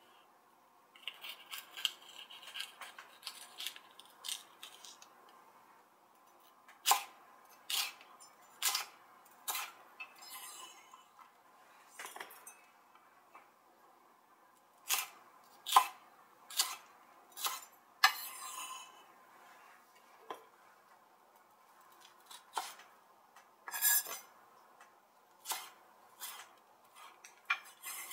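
Kitchen knife cutting crisp green peppers on a wooden cutting board: sharp single chops about once a second in several runs, with quieter handling and scraping ticks between them.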